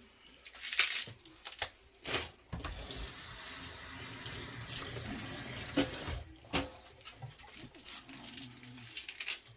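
Kitchen tap running in a steady stream for a few seconds, with a few light knocks and clicks before and after it.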